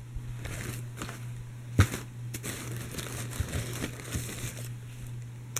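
Rustling and crinkling of a non-woven fabric drawstring bag and the packaging inside it as a hand rummages through it. There is a sharp click a little under two seconds in and a few softer knocks.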